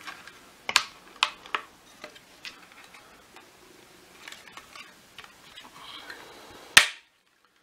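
Plastic clips and casing of a Miele Triflex HX1 Pro vacuum's motor housing clicking and creaking as the halves are pried apart by hand, with a few sharp clicks early and one loud snap near the end as a clip lets go.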